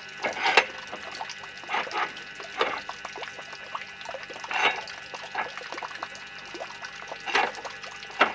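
Belt-tensioning adjuster on a two-compressor motor bed being tightened by hand: a handful of separate metal scrapes and clinks spread over several seconds, with a faint steady hum underneath.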